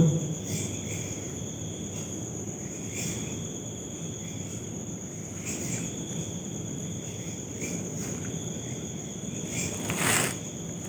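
Crickets chirping steadily in a high, even drone with regular pulses, over low background hiss. About ten seconds in, a short noisy burst stands out as the loudest moment.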